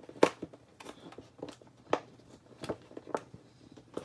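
A string of irregular sharp clicks and taps, about two a second, the first the loudest: plastic and packaging being handled while a doll is unboxed.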